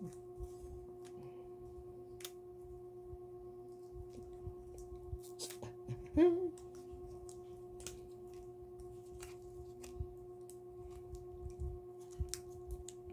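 Scattered light clicks and crinkles of a Ritter Sport chocolate bar's wrapper being worked at by hand as it resists opening, over a steady hum. A brief louder sound that bends in pitch comes about six seconds in.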